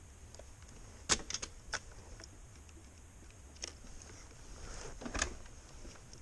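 A few sharp clicks on the KTM 690 Enduro R as another start is tried. Some come in a quick cluster about a second in and more near five seconds, with no engine cranking or catching: the bike still won't start.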